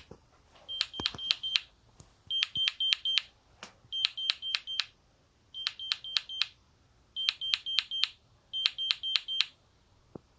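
GE Simon XT alarm control panel sounding its exit-delay countdown beeps after being armed. The beeps are short and high, in quick groups of four, with a group about every second and a half.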